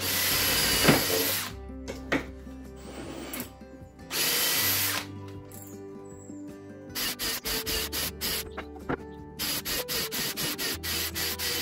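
Cordless drill boring pilot holes in treated softwood timber. There is a burst at the start and another about four seconds in, then a quick run of short on-off bursts near the end.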